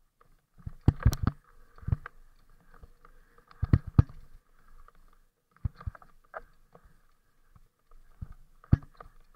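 Irregular knocks and rattles of a bike jolting over rocks and roots on a rough trail, picked up through the mounted camera, with a faint steady hum underneath. The loudest bangs come in clusters about a second in and near four seconds in, with one more near the end.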